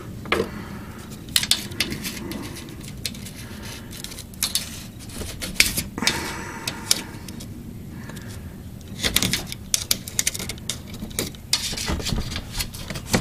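A steel pick scraping and clicking against the metal retaining clip of a transmission cooler line quick-connect fitting as it is pried at by feel: irregular sharp ticks and scrapes in several clusters.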